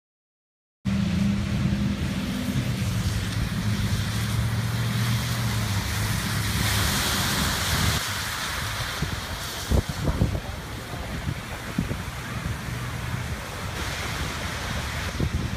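Silent for about the first second, then a steady outdoor rush of wind on the microphone and water, with a low engine hum under it that fades out about halfway through. A few knocks near the end.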